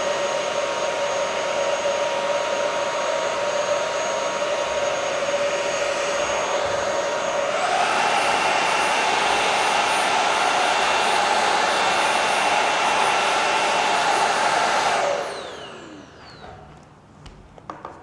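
Xiaomi JIMMY JV63 cordless stick vacuum's brushless motor running, a steady whine over rushing air. About halfway through it steps up to a higher, louder suction setting, and about 15 seconds in it is switched off and the motor winds down with a falling whine.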